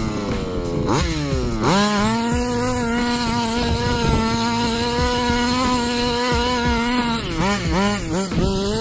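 HPI Baja 5B RC buggy's 32cc Zenoah two-stroke engine with a Samba Buzz Saw side exhaust, revving. After a quick blip in the first second, it climbs to high revs and holds them steady for about five seconds, then drops back and blips up and down several times near the end.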